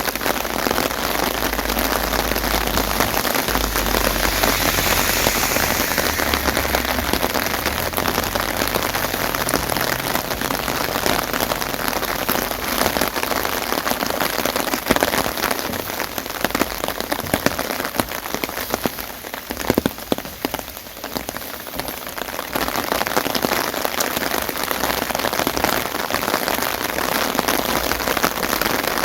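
Steady rain pattering down in a dense, even patter, easing briefly about twenty seconds in with a few sharper drops striking, then picking up again.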